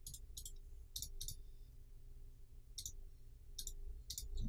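Computer mouse left button clicking: about eight short, sharp clicks, several in quick pairs like double clicks, over a faint low hum.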